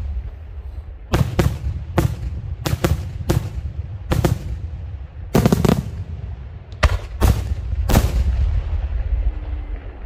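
Daytime aerial fireworks shells bursting overhead: about a dozen sharp bangs in irregular succession, some in quick pairs, over a steady low rumble, stopping about eight seconds in.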